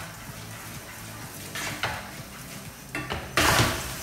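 Wooden spoon stirring chopped onions sweating in foaming butter in a cocotte, with a soft sizzle and a few scrapes against the pot. A brief louder burst of noise comes near the end.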